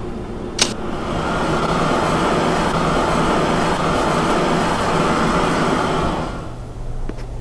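A sharp click, then a blowtorch flame hissing loudly and evenly for about five seconds before fading away.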